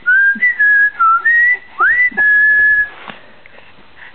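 A person whistling a short tune of about six notes, several sliding up into pitch, the last one held longest, stopping about three seconds in.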